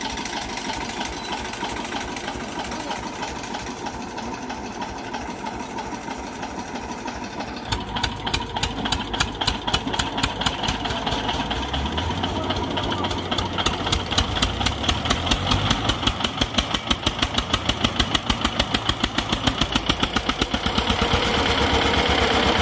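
Diesel tractor engine running; about eight seconds in it turns to a loud, even chugging beat, about five beats a second, that grows louder toward the end, as an engine works harder.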